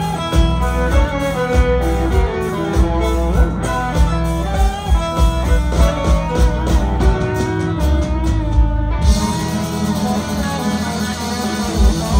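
Live country band playing an instrumental break without vocals: electric guitar and fiddle lines over bass and drums. The band's sound shifts about nine seconds in.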